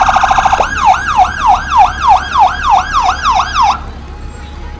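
Fire truck's electronic siren running a rapid warble. About half a second in it switches to a yelp of repeated sweeping tones, about three a second, then cuts off suddenly about a second before the end.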